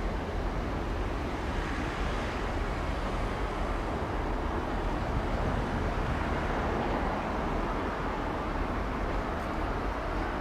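Class 43 HST diesel power car running as it approaches slowly over pointwork, a steady low diesel engine sound mixed with rail and wheel noise.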